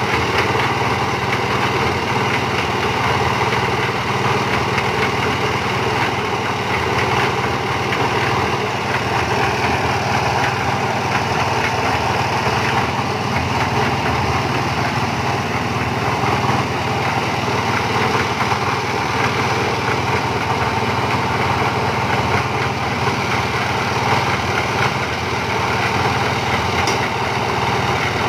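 Engine of a 500-litre concrete mixer running steadily at a constant speed, driving the drum.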